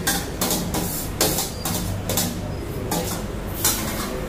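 Food being mixed by hand in a steel plate: irregular short scraping and rustling strokes, roughly one every half second to second, over a steady low hum.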